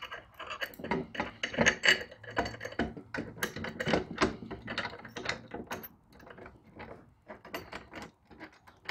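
Rapid, irregular metallic clicking and clinking of bolts, nuts and a steel mounting bracket being handled and threaded on by hand while a lawn-striping roller kit is fitted to a mower. The clicks are dense for about six seconds, then thin out to scattered taps.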